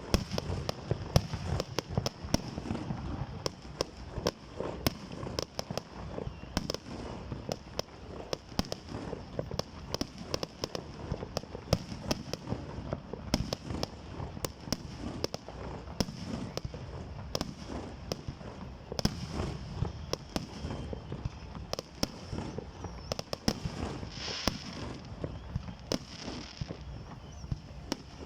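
Fireworks display: a continuous barrage of sharp bangs and crackles from bursting shells, several a second, over deep booms.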